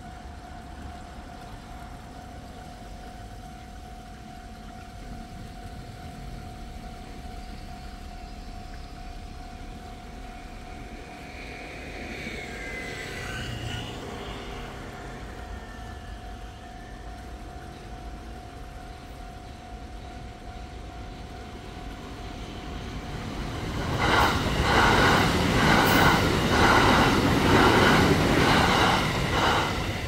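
Japanese railway level-crossing alarm sounding continuously. About three-quarters of the way in, a train passes over the crossing much louder than the alarm, its wheels clacking roughly once a second, and drowns the alarm until near the end.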